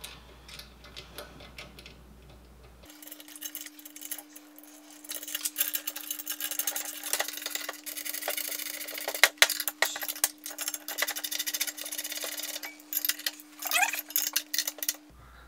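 Dense, irregular small metal clicks and clinks of wrenches, nuts and bolts as 7/16 nuts are fitted to an aluminum angle bracket on a transmission brace. They start about three seconds in, over a faint steady hum.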